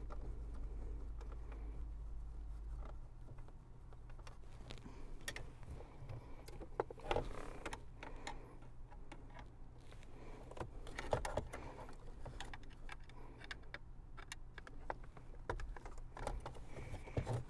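Phillips screwdriver turning out the small screws in the plastic ashtray housing of a 2001 Toyota Camry dash, with scattered light clicks and knocks of metal tool on plastic trim. A low hum stops about three seconds in.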